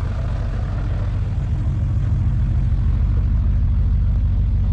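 A classic vehicle's large engine running at low revs close by: a deep, steady sound with even firing pulses that grows slightly louder.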